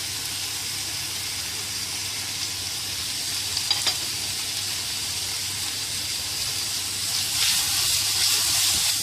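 Sliced chicken, red onion and ginger sizzling in hot oil in a pan as they are stir-fried, a steady hiss with a couple of short clicks about four seconds in. The sizzle grows louder near the end.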